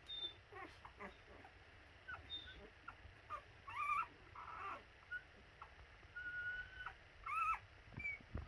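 A week-old mastiff puppy squeaking and whimpering: a string of short high squeaks, some rising or falling in pitch, with one longer held whine about six seconds in.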